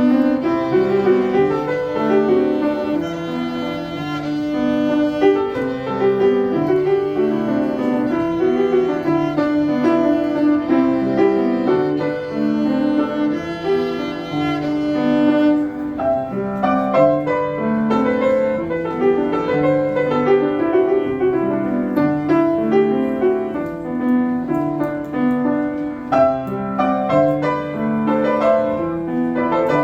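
Live instrumental duet: a sustained solo melody line played over piano accompaniment.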